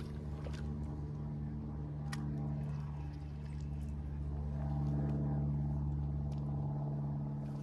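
Boat's outboard motor running steadily, a little louder about five seconds in.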